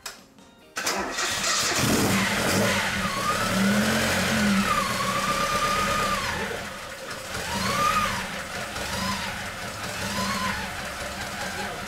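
1974 Mitsubishi Galant engine starting about a second in and running with several blips of the throttle. A whine rises and falls with each rev. The mechanics call it an odd 'hiru-hiru' noise and guess it comes from the cam chain side before oil has reached the top of a freshly reassembled engine.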